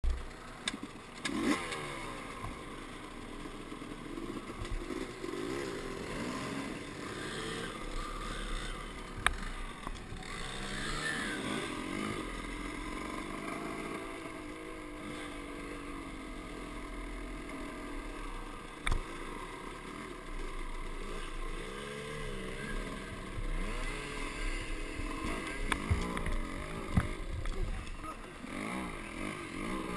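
Dirt bike engines running and revving up and down through the gears on a trail ride. A few sharp knocks come through, about four over the stretch.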